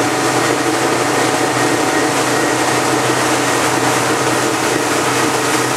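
Tow boat's engine running steadily at speed, a constant low hum under the rush of its churning wake water.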